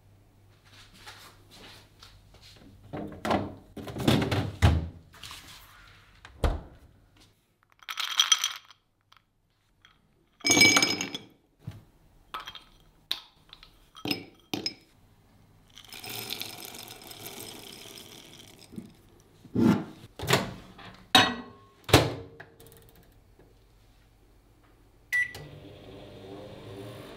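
Kitchen handling sounds: a run of thunks, clinks and rustles as things are worked and set down, including a clicking rattle of small chocolate balls dropping into a glass. Near the end comes a short beep, then the steady hum of a microwave oven starting up.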